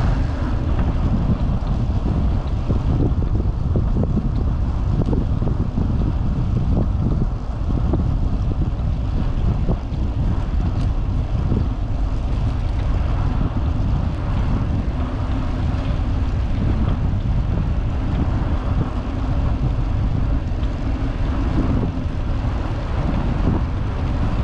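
Wind buffeting the microphone of a handlebar-mounted GoPro while a vintage road bicycle is ridden, a loud, steady low rumble with the bike's own riding noise beneath it.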